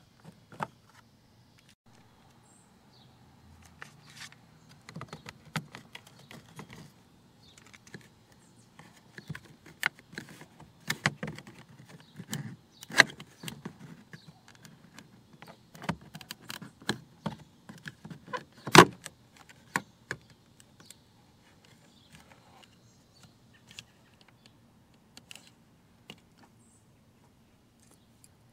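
Plastic interior trim of a car's rear door panel being pried and handled: irregular clicks, knocks and rattles, thickest in the middle stretch, with one sharp knock about two-thirds of the way through.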